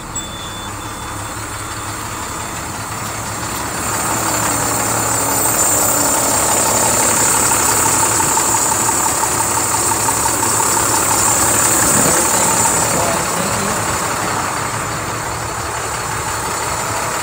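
Diesel engine of a 2007 IC CE 300 school bus idling steadily, growing louder about four seconds in and easing off again near the end. A high-pitched beep repeats during the first few seconds.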